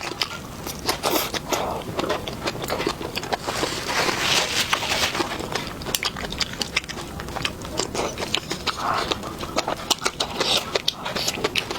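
A person eating close to the microphone: chewing and lip smacking, a dense run of small wet clicks.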